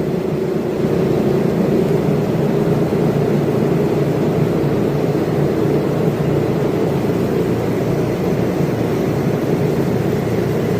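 Steady, unbroken machine drone with a low hum, unchanging throughout.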